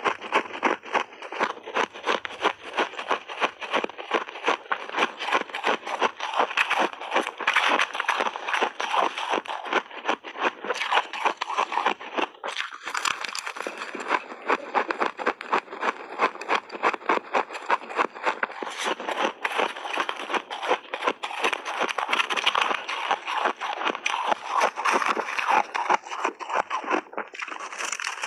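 Shaved ice with crushed berries being crunched and chewed in big mouthfuls, picked up close by a lapel microphone: a dense, fast run of crisp crackles and crunches with a couple of brief pauses.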